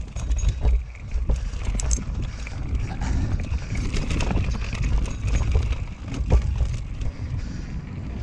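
Norco Range carbon enduro mountain bike descending rough, rooty singletrack and rocks at speed: a steady rumble of tyres on dirt with frequent rattling knocks from the bike as it runs over roots and stones.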